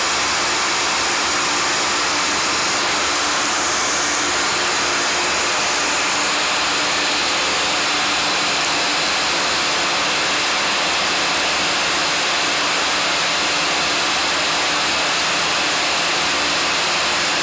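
Yarn twisting machine running: a loud, steady whir with a faint low hum, unchanging throughout.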